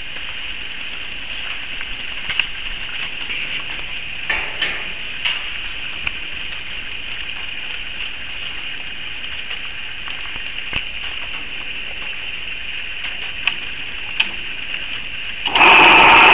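A steady hiss with a few faint clicks and knocks. Near the end, the homemade grinder's washing-machine electric motor is switched on and starts running, much louder.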